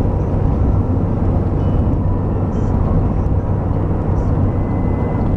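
Car driving steadily along an asphalt highway, heard from inside the cabin: a steady low drone of engine and tyre noise.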